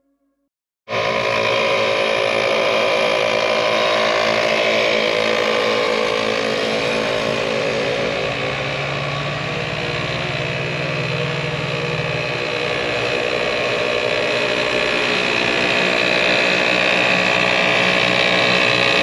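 Twin-cylinder onboard air compressor mounted in the engine bay, running steadily to air the tyres back up after off-roading. It starts abruptly about a second in.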